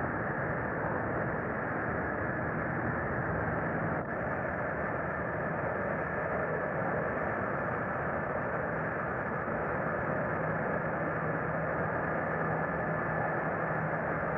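Steady jet engine noise from a Boeing 747's Pratt & Whitney JT9D turbofans as the airliner moves on the ground. It sounds dull, with no high end, as on an old film soundtrack, with a faint low hum running under it.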